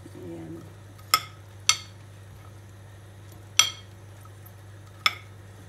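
Four sharp clinks, spread irregularly over several seconds, of a ceramic plate knocking against the rim of a stainless steel pot as sliced bitter gourd is slid off it into the water, over a low steady hum.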